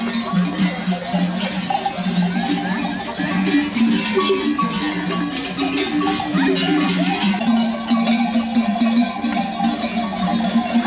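Many bells hung on a flock of sheep and goats, clanking and ringing together in a jumble of pitches as the flock walks past.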